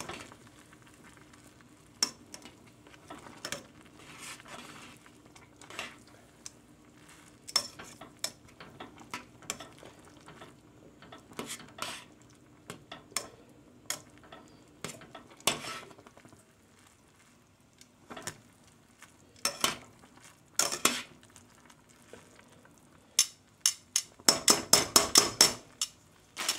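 Metal tongs clinking and scraping against a stainless steel saucepan while stirring instant noodles in broth, with scattered knocks. About two seconds before the end comes a quick run of taps.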